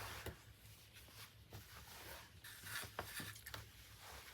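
Faint rustling and light handling noises from fabric and packaging, a few soft ticks scattered through, over a low hum.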